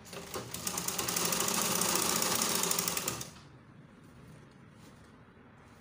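Sewing machine stitching a fast run for about three seconds, picking up speed at the start and then stopping, as stretched elastic is top-stitched onto a skirt waistband.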